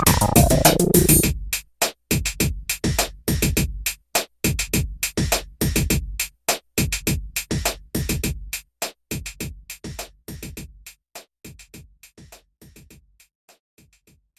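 Electronic background music. A dense synth passage breaks off about a second and a half in into choppy, stuttering beat hits that grow sparser and quieter until they fade out near the end.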